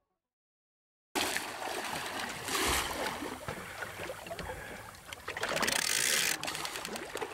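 About a second of silence, then sea water splashing and sloshing at the surface beside the boat, churned up by a hooked shark. The splashing gets louder twice: about two and a half seconds in, and again near the six-second mark.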